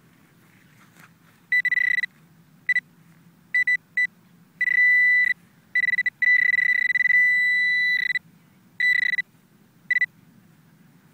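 Metal detecting pinpointer probe beeping in a single fixed-pitch tone, in bursts of uneven length: short chirps and longer held tones, starting about a second and a half in and stopping near the end. The tone signals metal near the probe's tip as it is worked in a freshly dug hole, here over a dime.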